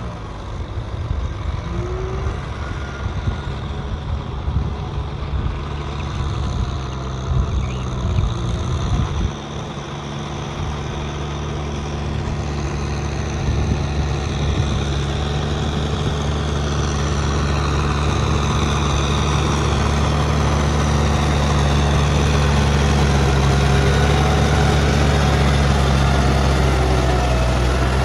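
Kubota M6040 SU tractor's diesel engine running steadily under load as it drives a rear rotary tiller through a wet rice paddy, a low drone. It grows louder from about ten seconds in as the tractor comes closer.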